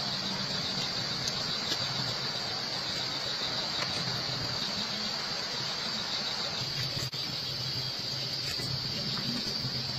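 Night insects, crickets, trilling in a steady, continuous high-pitched chorus over an even background hiss and a low hum.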